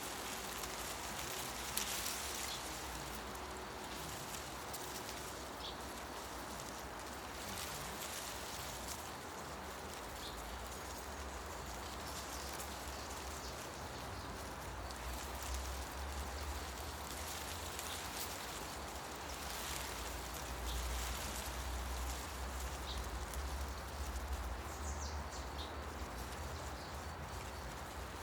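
Forest ambience: wind rustling through tree leaves, with a low rumble that swells in the second half. A few brief bird chirps sound here and there.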